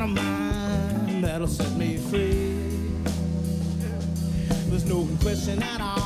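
Funk and soul band playing live, with drum kit, bass, guitar, keyboards and a horn section.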